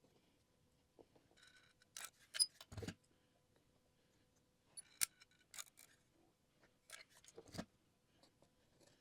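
Small pieces of natural ledge rock clicking and knocking against one another as they are handled and set in place: scattered light taps in a few short clusters.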